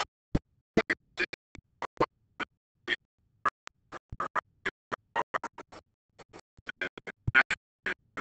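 Badly broken-up audio: short snatches of a man's voice at a microphone, cut by dead silent gaps several times a second so that no words come through. This is the sign of digital dropouts in the recording.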